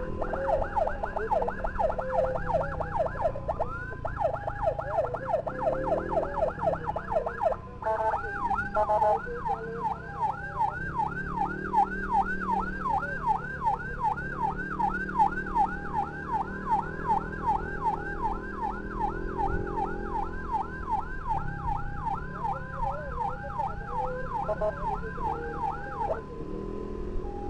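Electronic emergency siren in a fast yelp, rising and falling two or three times a second, with a steady tone alongside, over the hum of motorcycle engines. The siren breaks off briefly about eight seconds in and stops near the end.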